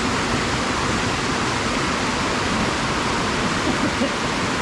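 A waterfall and its stream rushing steadily, a dense, even roar of water with no breaks.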